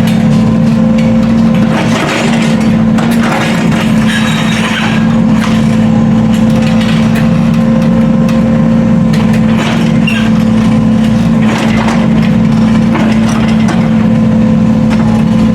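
A heavy machine's engine running steadily under load, with scattered knocks and cracks over it.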